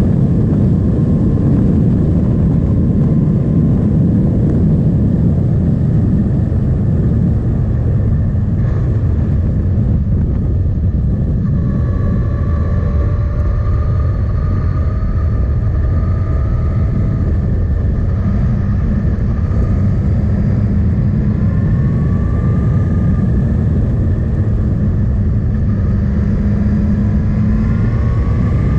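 Suzuki GSX-S 1000 motorcycle's inline-four engine running while riding, under heavy wind noise on the action camera's microphone. The engine pitch rises and falls gently as the revs change, climbing a few times in the second half.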